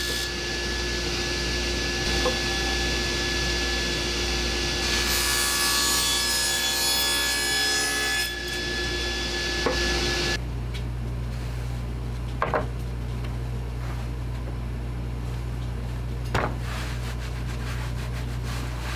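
Table saw running and ripping plywood panels, the cutting loudest from about five to eight seconds in. About ten seconds in the saw sound cuts off abruptly, leaving a low steady hum with two light knocks.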